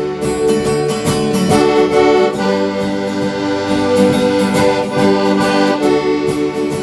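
Small band playing an instrumental break in a country song: a lead instrument holds long notes over guitar.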